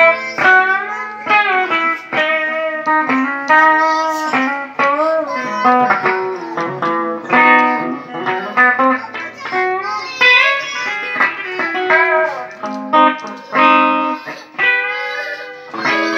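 Les Paul-style electric guitar with a Bigsby vibrato tailpiece, played as a run of picked notes and chords with many notes bending and wavering in pitch.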